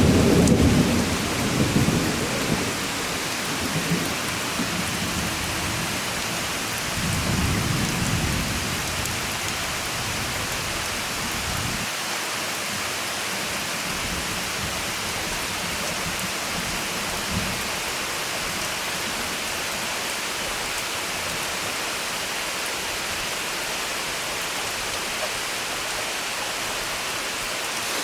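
Steady summer rain, with thunder rumbling loudly at the start and dying away over about two seconds, then a second, fainter rumble about seven seconds in; after that, only the even hiss of the rain.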